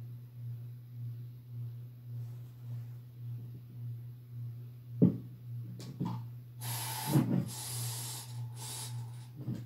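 A steady low hum with a faint regular pulse runs throughout. A sharp knock comes about five seconds in, followed by a couple of seconds of rustling.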